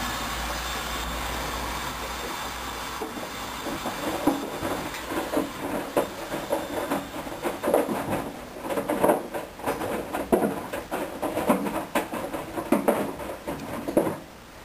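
Hoover Dynamic Wash front-loading washing machine in its wash phase: a steady rushing hiss, then, from about four seconds in, the drum turning and tumbling wet towels, with irregular sloshing surges and knocks. It cuts off suddenly near the end.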